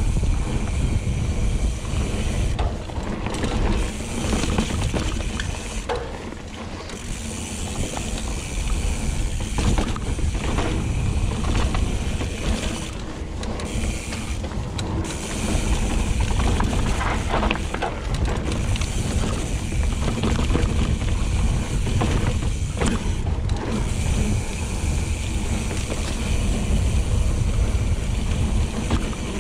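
Hope Pro 4 rear hub's freehub buzzing loudly as the mountain bike coasts, cutting out briefly several times when the rider pedals. Heavy low rumble of wind and trail noise on the helmet-mounted microphone runs underneath.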